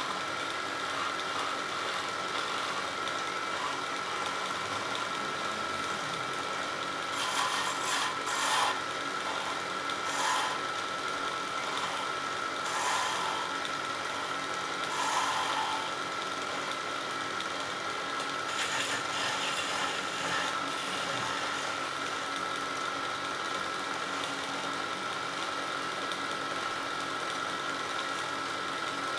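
Wood lathe running with a steady hum while a hand-held chisel cuts a spinning wooden spindle. There is a run of short, louder scraping cuts through the middle, between softer stretches of the tool rubbing on the wood.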